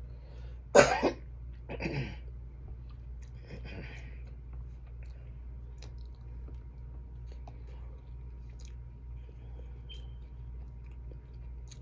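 A person eating: a short loud burst about a second in and two softer ones soon after, then faint chewing and small scattered clicks as she picks at the food.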